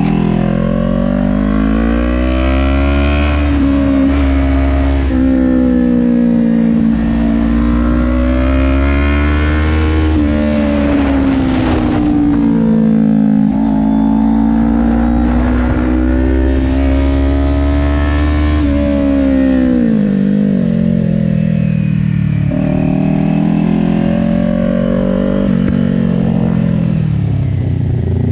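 Kawasaki Ninja 400's parallel-twin engine from on board, revs rising and falling several times as the bike accelerates between corners and rolls off the throttle into them.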